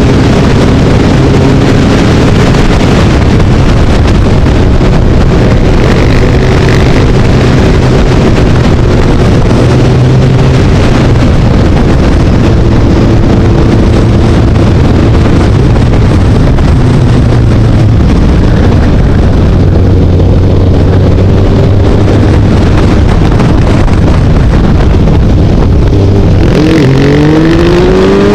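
Motorcycle engine running at a steady speed under loud wind rush across the microphone of a camera on the moving bike. About a second before the end the engine's pitch climbs sharply as it revs up.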